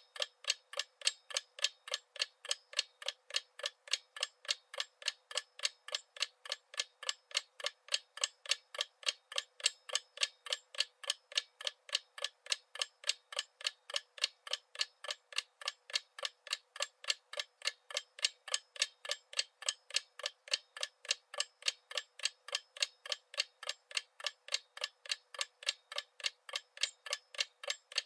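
Clock ticking in an even, unbroken rhythm, about three ticks a second.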